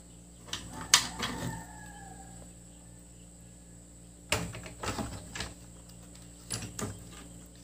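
Light clicks and knocks of a circuit board and plastic radio casing being handled as the board is lifted out of the case, in a few short clusters.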